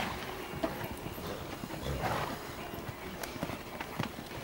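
Hoofbeats of a show-jumping horse cantering on a sand arena, heard as scattered soft thuds and clicks.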